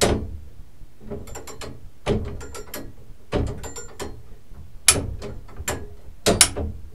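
Ratchet and pawl of an 1885 tower clock movement clicking as its push lever is worked: short runs of sharp metallic clicks about every second or so, showing the ratchets catching properly.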